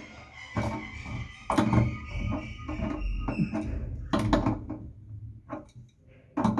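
Irregular knocks, clicks and clatter of plumbing fittings and tools being handled, with a thin high tone held through the first three seconds or so.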